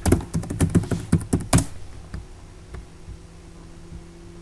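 Computer keyboard typing: a quick run of about a dozen keystrokes over the first second and a half, then it stops, leaving only a low steady hum.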